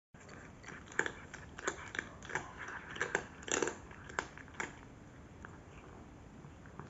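Domestic cat eating dry kibble: a string of sharp, irregular crunches, a couple a second, that stop about two-thirds of the way through.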